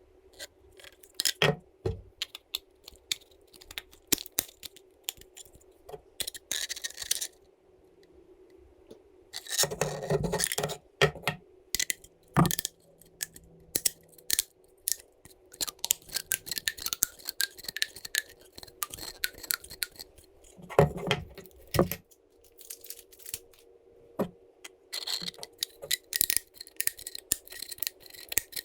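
Hands handling and fitting 3D-printed plastic parts and small metal screws, nuts and washers: irregular clicks, taps and short scrapes, with a steady faint hum underneath.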